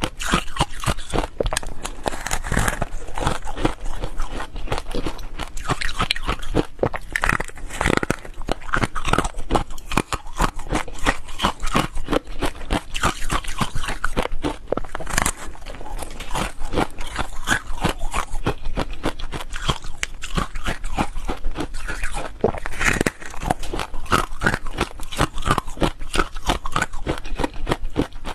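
Crunching and chewing of frozen foam ice, close to the microphone: dense, rapid crackling crunches as the frozen block is bitten and chewed.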